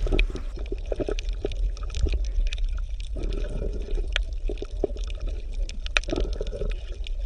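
Aquarium water gurgling and bubbling, with many small pops over a steady low hum.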